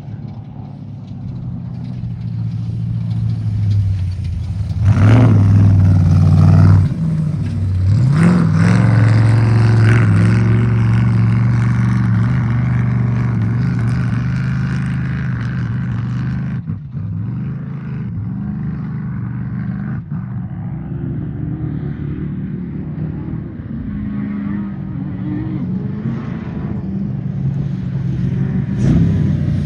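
Off-road race vehicle engine revving hard. The pitch climbs sharply about five seconds in, cuts off suddenly near seven seconds, then climbs again and holds at high revs before easing off slowly.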